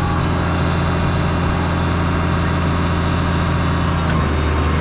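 Tractor engine running steadily under load as it drives a feed mixer through the PTO, with the mixer turning again after part of its load was shoveled out so as not to shear another bolt. The engine note shifts slightly about four seconds in.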